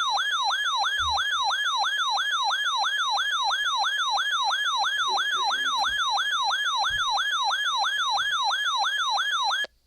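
Electronic siren alarm of a weather alert radio receiver, a loud rapid wail rising and falling about three times a second. It signals an incoming severe weather warning and cuts off abruptly near the end.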